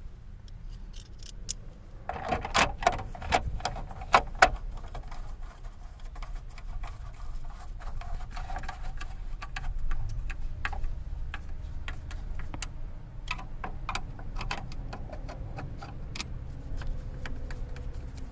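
Hand tool clicking and tapping as the last screw of a steering-column cover is snugged, with a cluster of louder knocks about two to four and a half seconds in and scattered light clicks after.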